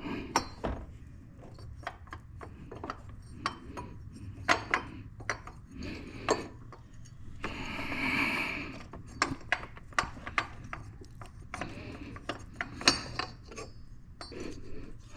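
Scattered sharp metal clicks, clinks and rubbing as a fan clutch is worked into place on its pulley in an engine bay.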